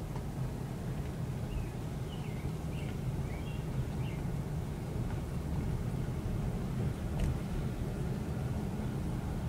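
Steady low engine and road rumble inside a car's cabin while driving slowly, with a few faint high chirps a couple of seconds in.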